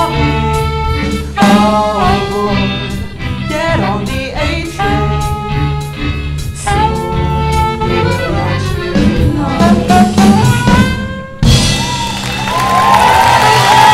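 Jazz combo with two singers, alto saxophone, accordion, electric guitar, bass and drums playing the final bars of a swing tune, cutting off sharply on the last note about eleven seconds in. The audience then breaks into applause and cheering.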